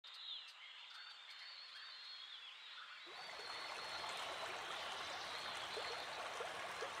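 Birds chirping high over a faint hush, then a steady rush of running water fades in about three seconds in and grows a little louder.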